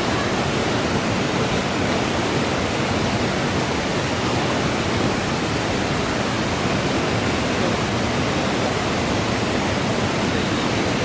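Steady rushing of a mountain valley stream, an even wash of water noise with no breaks.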